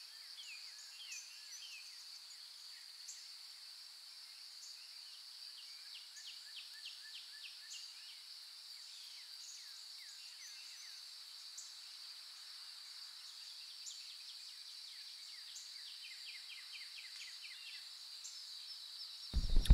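Faint birdsong: many short chirps and quick falling notes, scattered throughout, over a steady high-pitched hiss.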